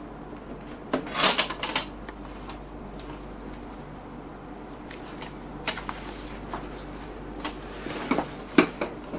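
Plastic clicks, taps and rustles of hands working inside an Epson TX121 inkjet printer, pressing an adhesive cable clip onto its inner wall to hold the ink tubes. A burst of rustling comes about a second in and sharper single clicks come later, over a low steady hum.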